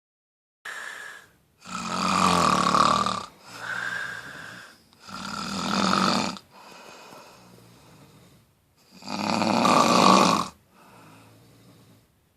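Snoring: three loud, buzzy snores about three and a half seconds apart, each followed by a quieter breath.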